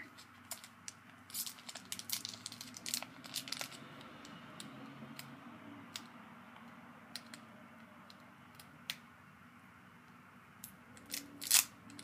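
Foil booster pack wrapper crinkling and tearing as it is opened by hand: a flurry of sharp crackles, thinning out after a few seconds, with one louder crackle near the end.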